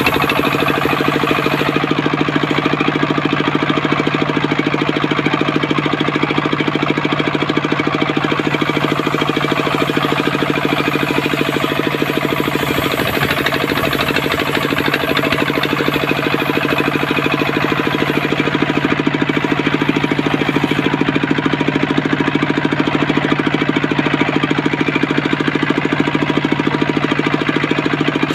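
Engine-driven homemade circular sawmill running steadily, with a fast, even engine beat, used for sawing coconut-palm trunk into beams.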